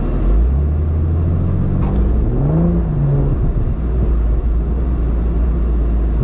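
Off-road vehicle engine pulling under load over a steady low drone. It revs up from about half a second in, peaks a little after two and a half seconds, and eases off again about a second later.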